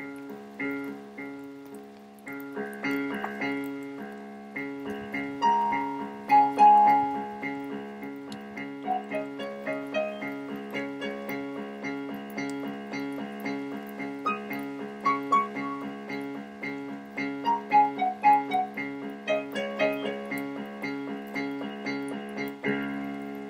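Piano music: a steady pulse of repeated low chords with a melody line above, louder from about three seconds in.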